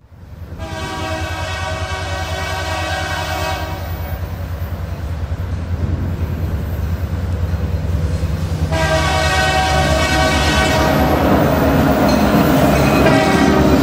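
Sound-equipped HO scale model diesel locomotives approaching: a steady diesel engine rumble with two long blasts of a multi-chime air horn, the first lasting about three seconds and the second starting about nine seconds in. Near the end a rushing clatter of the train passing close grows louder.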